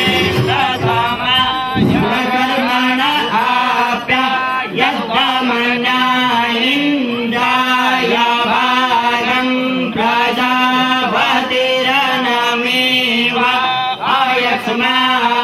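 A male voice chanting a Hindu devotional hymn, the melody held mostly on one note with small bends, in long phrases with brief breaks between them.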